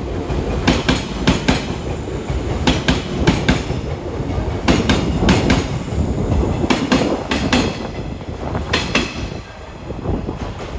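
Wheels of a passing JNR 185 series electric train clattering over rail joints: sharp clicks coming mostly in quick pairs as each bogie crosses, over a steady rumble. The clatter thins out near the end as the last car goes by.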